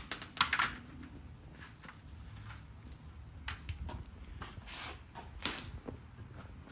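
Irregular clicks and knocks of hand tools and metal parts being handled during a motorcycle exhaust install, with a sharper knock about five and a half seconds in.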